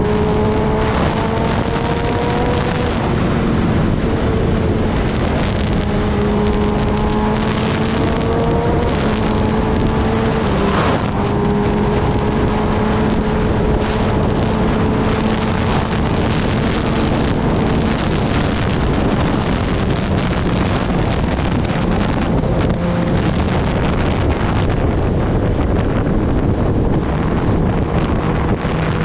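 Kawasaki Ninja ZX-10R's inline-four engine running at road speed under a heavy rush of wind on the microphone. The engine note climbs slowly, with brief breaks about three and eleven seconds in. In the last third it settles lower and fainter, and the wind noise dominates.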